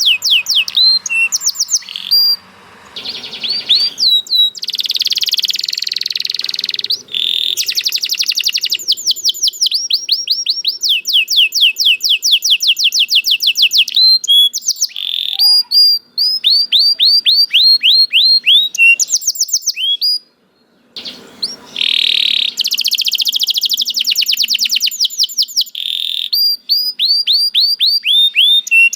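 Domestic canary singing: long fast rolls of repeated falling notes, changing from one trill to the next, with a few buzzy held notes. The song breaks off briefly about 20 seconds in, then resumes.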